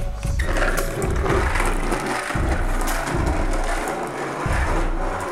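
Skateboard wheels rolling on rough asphalt: a steady rolling noise that starts about half a second in.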